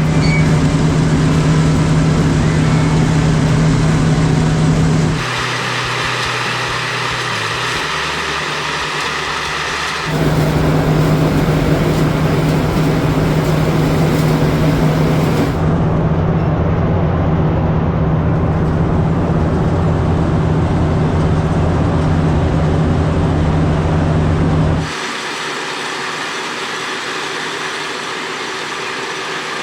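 Farm tractor engines running steadily under load alongside potato-harvesting machinery. The sound changes abruptly at several points, about five, ten and twenty-five seconds in: in some stretches a strong low engine hum dominates, and in others the low hum drops away, leaving higher-pitched machinery noise.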